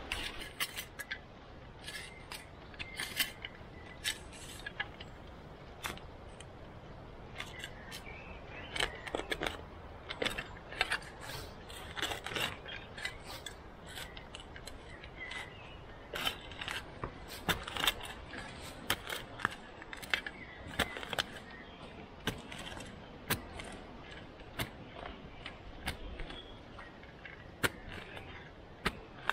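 Short-handled spade digging into soil: the metal blade chops and scrapes into the earth in irregular strokes, one after another, with loose dirt being scraped out.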